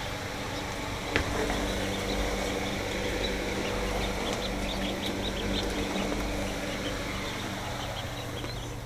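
Newly hatched ducklings peeping, many short high chirps, over a steady low machine hum with a single knock about a second in.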